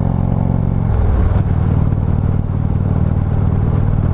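Harley-Davidson Street Glide Special's V-twin engine running under way. Its note drops about a second in, then holds steady.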